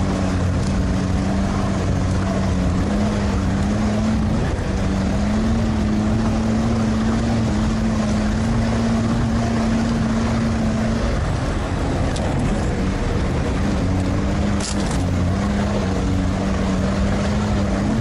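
All-terrain vehicle engine running steadily under way, its note holding with only small shifts in speed.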